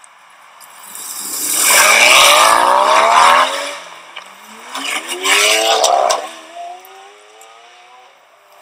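Supercar engine accelerating hard: a loud rising engine note that breaks off, then a second climb in pitch through the next gear that fades as the car pulls away.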